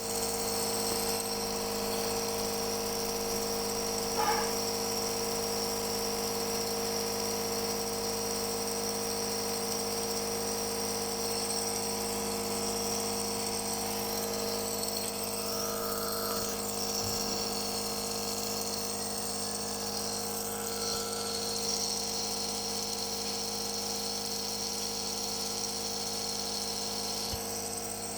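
Compressor nebulizer's small electric motor running with a steady hum and buzz.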